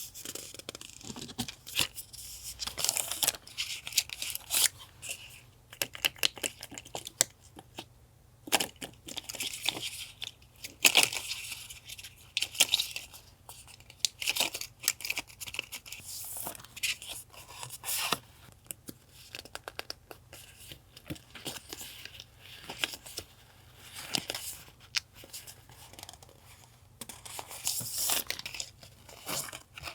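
Paper being torn and crinkled by hand close to the microphone: irregular rips and rustles with sharp clicks, coming in bursts with short pauses between.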